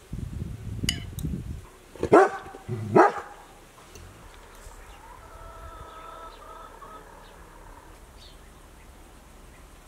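Two loud, short animal calls about a second apart, which sound like barks, after a low rumble in the first second and a half. Fainter, drawn-out calls follow a few seconds later.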